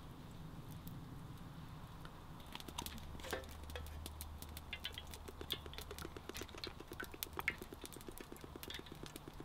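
Vegetable oil poured from a plastic bottle into an aluminium mess tin, starting about three seconds in, with a fast, even pulsing as it pours. Scattered sharp crackles from a campfire are heard over it.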